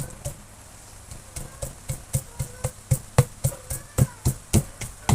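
Pestle pounding grilled peppers in a plastic mortar: steady, dull strikes about four a second, after a brief pause about a second in.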